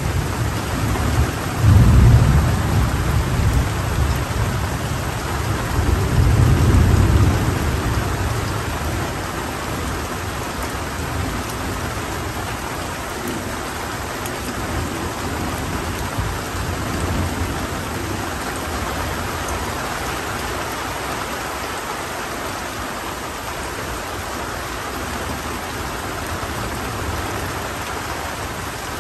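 Heavy tropical rain pouring steadily through the forest, with rolling thunder: a rumble breaks in suddenly about two seconds in, another swells around six seconds, and both fade away, leaving the rain.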